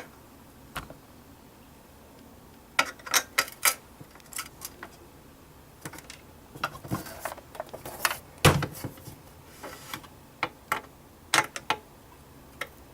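Irregular small clicks and knocks of a screwdriver working the cover screws out of a DVR case, with the screws and parts being handled. The loudest knock comes about eight and a half seconds in.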